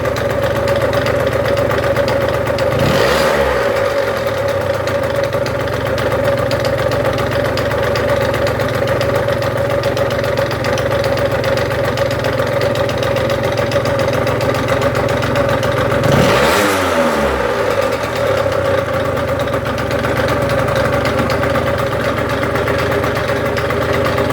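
Vehicle engine idling with a rattling noise, revved briefly twice: about three seconds in and again about sixteen seconds in.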